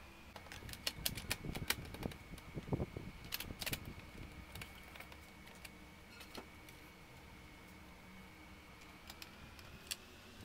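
Thin sheet-metal shield of an all-in-one computer's internal frame clattering and clicking as it is laid onto the metal chassis and pressed into place. There is a dense run of sharp clicks in the first few seconds, then a few isolated clicks.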